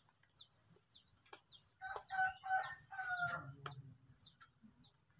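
A rooster crows once, about two seconds in, a drawn-out call of several segments that falls in pitch at the end. Small birds chirp repeatedly throughout, short high chirps about twice a second.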